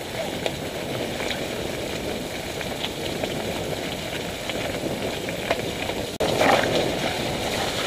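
Mountain bike riding over a rough dirt track: steady tyre and ride noise with scattered rattles and clicks. It cuts out briefly about six seconds in, then comes back louder.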